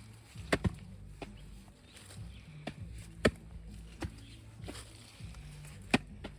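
Hand digging tool chopping into the ground in irregular strokes: about eight sharp knocks, the loudest a little past three seconds and near six seconds in.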